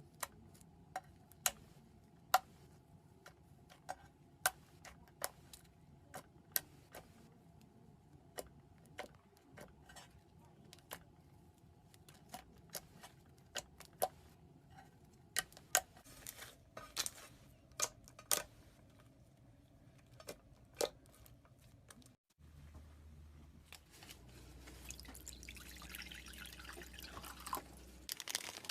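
Slime being played with: a run of sharp, irregular wet clicks and pops, then a soft rustling hiss near the end.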